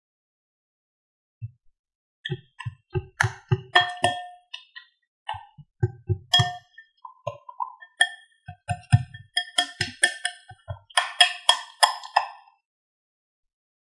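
Wire whisk clinking and knocking against a glass mixing bowl while stirring egg yolks into a thick batter: many irregular strikes, each with a short glassy ring. The strikes begin about a second and a half in and stop shortly before the end.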